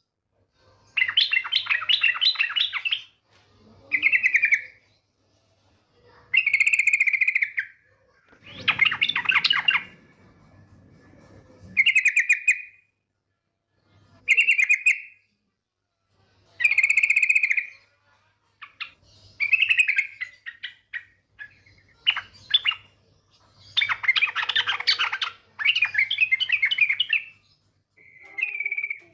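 Female yellow-vented bulbul (trucukan) calling: about a dozen short, bubbly chattering phrases, each lasting a second or two, with brief pauses between. This is a call used as a lure to set male birds singing.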